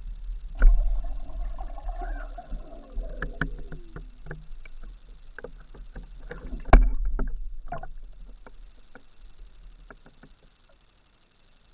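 Pike striking a dead bait at the surface, heard underwater: two heavy thumps, one about half a second in and one near seven seconds, with water sloshing and scattered sharp clicks between them, fading out near the end.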